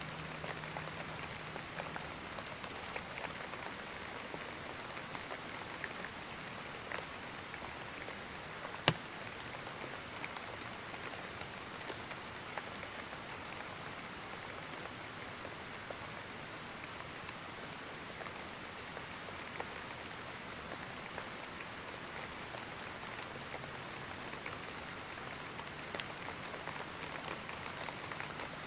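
Steady rain falling, an even hiss with individual drops ticking on a surface, and one louder drop about nine seconds in.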